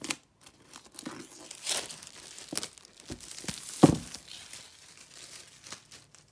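Plastic shrink-wrap being torn and peeled off a new iPad's cardboard box, crinkling and crackling, with a louder thump about four seconds in.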